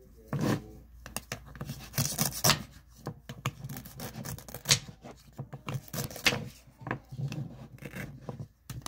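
Knife sawing through a loaf of bread: a series of irregular rasping strokes.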